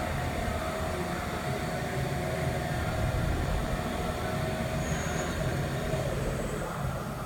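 AERRE CL 40 CNC tube-bending machine running, a steady mechanical hum and low rumble with one sustained mid-pitched tone that fades near the end.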